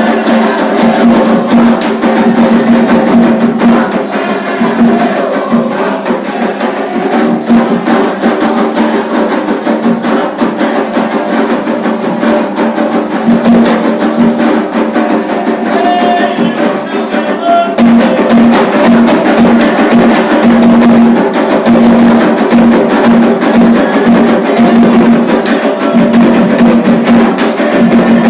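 Candomblé ritual drumming: atabaque hand drums beating a continuous rhythm, with a steady pitched tone under the strikes.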